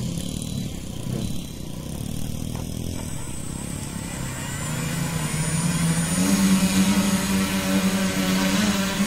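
Tricopter's electric motors and propellers spinning up: a low hum that climbs in pitch and grows louder about five to six seconds in, then holds a steady buzzing pitch as the craft lifts off the ground.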